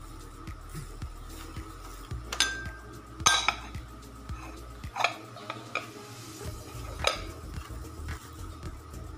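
A handful of sharp clinks and knocks of dishes against a ceramic plate, the loudest about three seconds in, over faint background music.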